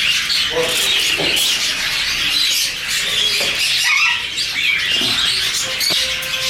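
Many caged parrots such as lovebirds and cockatiels chirping and squawking at once, a constant overlapping chatter of high calls.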